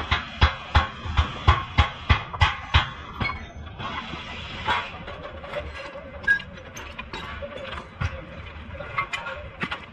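Sharp metallic knocks, about three a second for the first three seconds, then scattered lighter clinks and clicks of hand tools against a car's front brake caliper and its bracket bolts as it is worked loose.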